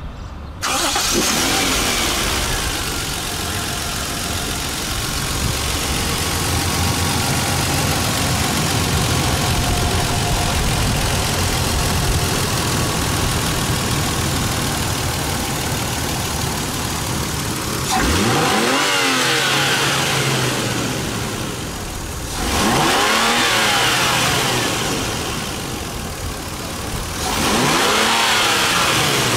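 1996 Toyota Crown S150's inline-six petrol engine idling steadily, then revved three times near the end, each rev rising in pitch and falling back to idle.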